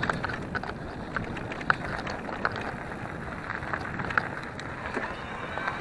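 Bicycle rolling along a dirt forest trail: a steady rush of tyre and wind noise with scattered sharp clicks and rattles from the bike.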